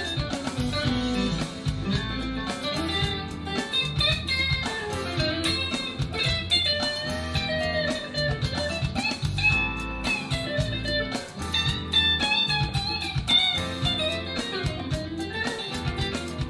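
Harley Benton Fusion III HSS electric guitar played with a clean tone, with shifting melodic lines and chords over a steady low bass part.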